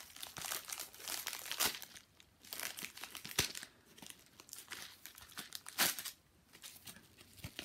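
Yellow padded mailing envelope crinkling and tearing as it is pulled open by hand, with a few sharper rips, one a little under two seconds in and the loudest about six seconds in.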